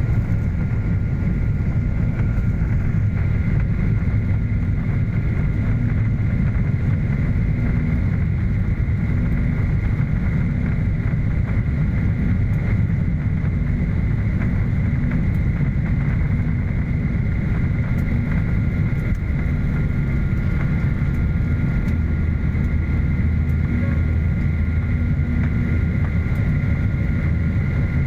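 Jet airliner's engines at takeoff thrust heard from inside the cabin during the takeoff roll and liftoff: a loud, steady rumble with a steady high whine over it.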